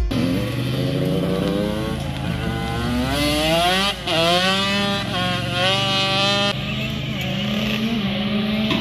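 Dirt bike engine accelerating hard, its pitch climbing and falling back at gear changes, once about four seconds in and again near six and a half seconds.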